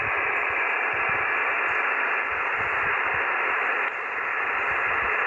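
Steady hiss of band noise from an HF amateur radio transceiver's speaker on single sideband, cut off above about 3 kHz, with no station coming through.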